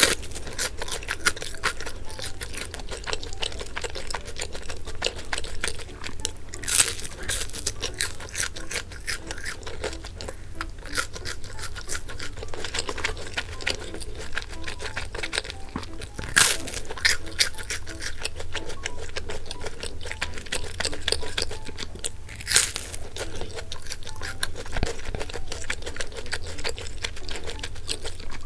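Close-miked eating sounds: chewing and biting into bungeoppang, fish-shaped pastries with a crisp crust, giving a steady crackly crunching with three louder crunches.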